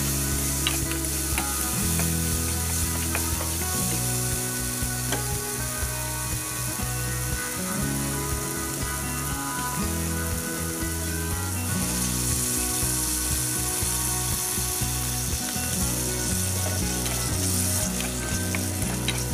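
Vegetables sizzling in hot oil in a frying pan, with scattered scrapes and clicks of a spatula stirring them. Background music with low held notes plays underneath.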